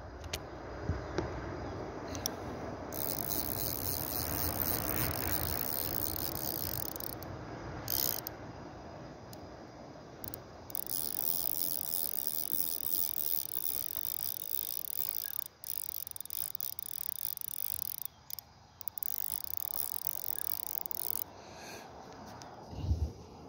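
Insects, crickets or similar, chirring in a steady high-pitched band that starts and stops abruptly several times, over a soft outdoor hiss. A low thump comes near the end.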